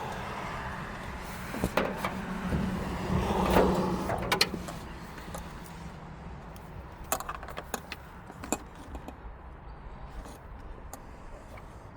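Rustling with sharp clicks and knocks of parts and wiring being handled, busiest in the first four seconds, then a few lighter clicks.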